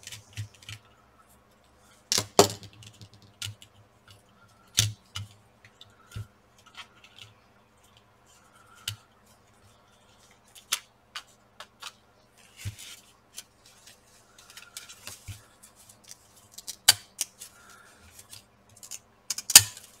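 Irregular clicks and light knocks from work on a graphics card's cooler: a screwdriver backing screws out of the plastic fan shroud, then the shroud being handled and pulled loose. The sharpest clicks come at about two seconds, five seconds and just before the end.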